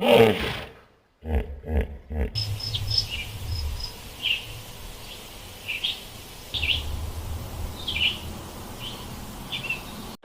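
Birds chirping: short high chirps about once a second over a steady outdoor hiss. This follows a few loud, low animal calls in the first two seconds.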